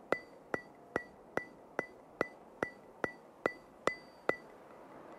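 Background music intro: a lone bright ticking click, like a clock tick or wood block, repeating evenly about two and a half times a second and stopping about four seconds in.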